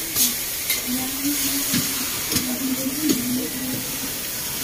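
Steady hissing with scattered crackling pops from a fire being hosed down. Faint voices carry underneath.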